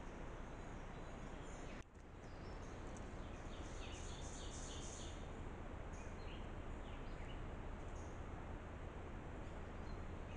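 Steady outdoor hiss with a quick run of faint, high chirps from a small animal about four seconds in, and a few more later. A brief dropout in the sound comes about two seconds in.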